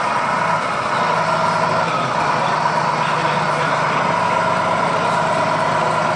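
Tamiya Grand Hauler 1/14-scale RC truck driving, heard from a camera mounted on it: a steady truck-like engine drone with a whine over it.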